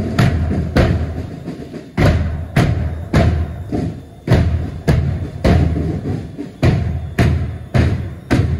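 A line of Ludwig marching bass drums struck together in a steady march beat, a little under two beats a second, each beat a deep thump.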